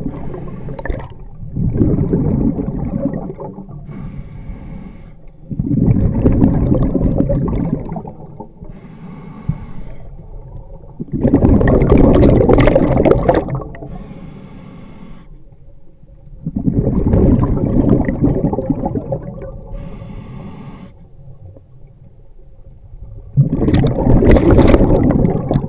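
Scuba diver breathing through a regulator underwater: a quieter hiss on each inhale, then a loud rush of exhaled bubbles, five exhalations about every five seconds.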